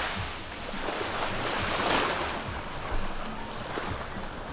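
Small sea waves breaking and washing up a sandy beach, one wave swelling to a peak about two seconds in and then fading.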